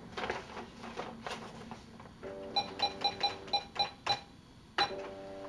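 Desktop fax machine dialing out: a few faint key clicks, then a steady dial tone comes on about two seconds in. A quick run of about eight short dialing beeps follows, then a click and a new steady line tone near the end.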